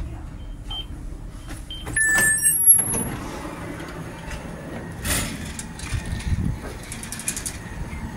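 Door warning beeps from an Alstom Coradia Lirex X61 commuter train, short and repeating about twice a second, then a louder burst of door-mechanism sound with high tones about two seconds in as the door opens at the platform.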